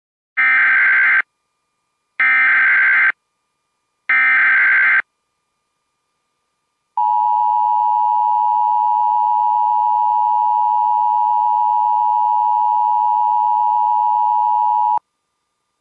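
Emergency Alert System tones: three short bursts of SAME header data, each about a second long and evenly spaced, encoding the alert (here a Local Area Emergency). After a pause comes the steady two-tone EAS attention signal, held for about eight seconds and cutting off sharply.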